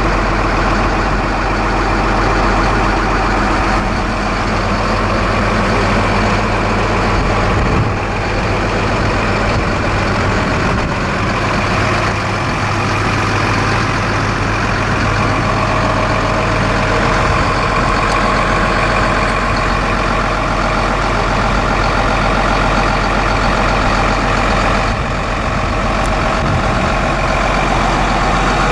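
Case CX330 excavator's Isuzu six-cylinder turbo diesel engine running steadily.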